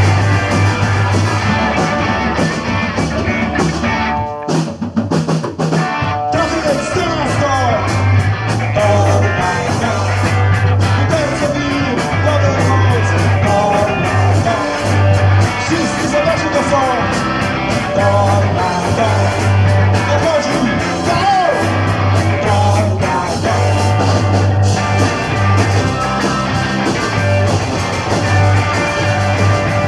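Punk rock band playing live and loud, with electric guitar, bass and drums under a singer. The band drops out for a moment about four seconds in and crashes back in about two seconds later.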